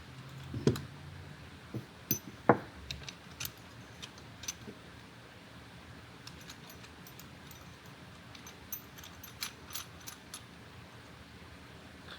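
Scattered small metallic clicks and clinks of a wrench working the jam nuts on a threaded sensor as they are tightened against its mount bracket, with quieter stretches in between.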